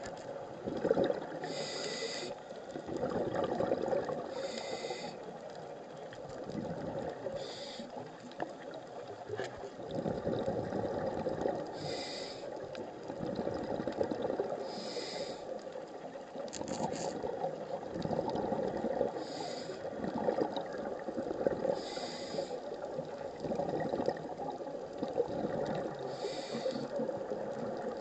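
Scuba diver breathing through a regulator underwater: a short hissing inhale every few seconds, with bubbling, rumbling exhalations in between.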